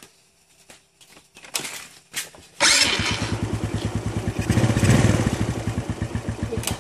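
A few clicks and knocks, then a Suzuki Smash's single-cylinder four-stroke engine starts about two and a half seconds in and runs with a fast, even beat until near the end.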